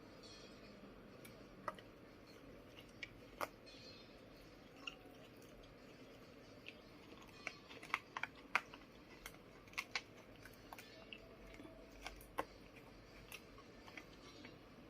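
A pet chewing crisp lettuce leaves: faint, irregular crunches, coming quicker in a run around the middle.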